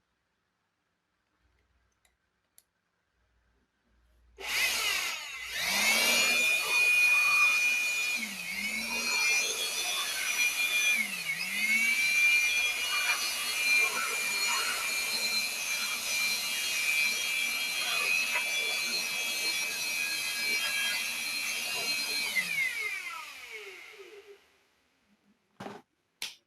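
A small high-speed electric motor, from a handheld cleaning tool used on the laptop's dust, spins up with a rising whine. It runs steadily for about 18 seconds, dipping in speed twice, then winds down. A couple of short clicks follow near the end.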